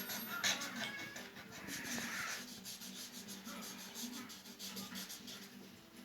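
Slime being squeezed and stretched by hand, a run of wet clicks and small pops.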